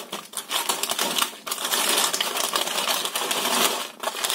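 A hand rummaging through and breaking dry, oven-baked pea crumble on parchment paper: a dense crackling rustle of crunching crumbs and crinkling baking paper.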